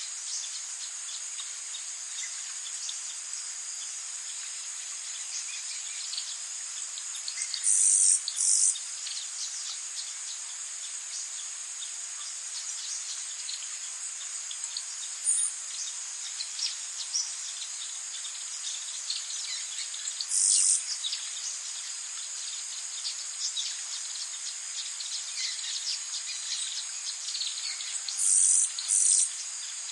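Forest ambience: a steady high-pitched chorus of crickets and other insects, with louder short buzzes standing out a few times: a pair about eight seconds in, one around twenty seconds, and another pair near the end. Faint bird chirps are scattered underneath.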